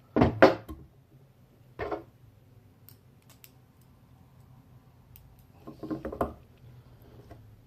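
Short clicks and knocks of small parts and tools being handled while the pistol grip is refitted to a paintball marker: a pair at the start, one about two seconds in, and a quick cluster about six seconds in.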